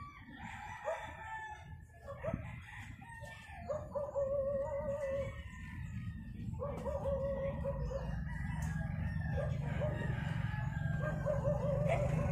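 A rooster crowing, about three long wavering crows, over a low steady rumble that grows louder in the second half.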